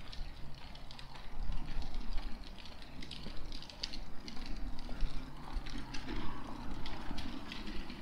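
Footsteps crunching on a dirt path, roughly two steps a second, over a steady low outdoor rumble of distant traffic.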